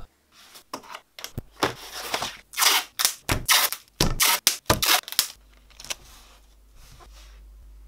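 A large sheet of paper being spread out and smoothed flat by hand on a wooden desk: a quick series of rustling swishes and slaps, some sharp, some drawn out. They stop about five seconds in, leaving a faint steady low hum.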